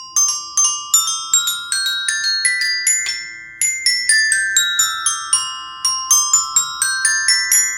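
Step bells, an eight-note C-to-C set of tuned metal bars on a staircase frame, struck with a mallet in quick scale runs of about four notes a second: up the scale, back down, then up again, each note ringing on.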